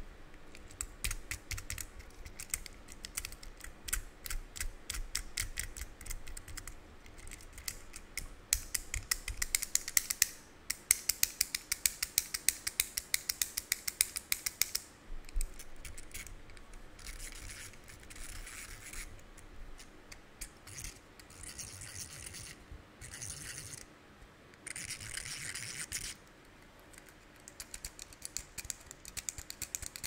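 Plastic fidget cube worked fast by hand: quick runs of sharp clicks for about the first half, then a few short scratchy rubbing stretches of a second or two each, and more clicking near the end.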